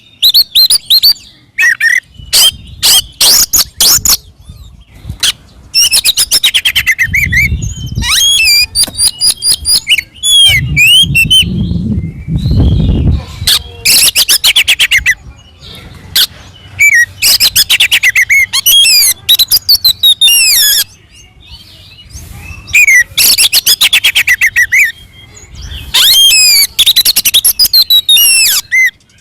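Oriental magpie-robin (kacer) in loud, aggressive full song: rapid strings of sharp repeated notes alternating with varied whistled phrases that sweep up and down, broken by short pauses, the excited fighting song used to provoke other males into answering.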